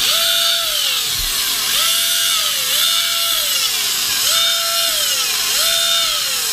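Traxxas Spartan RC boat's brushless motor run dry in the hand, blipped on the throttle about five times: each time the whine jumps up, holds briefly, then winds down over about a second, over a steady rushing noise. The freshly rewired motor and speed control are working.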